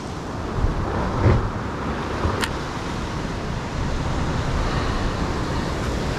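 Ocean swell surging and washing against the rock base of a sea cliff: a steady rush with a low rumble that swells a little in places. A single light click about two and a half seconds in.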